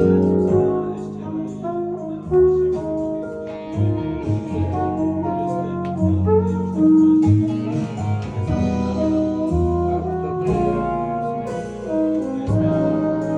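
Instrumental jazz-style music with held horn notes over a deep bass line.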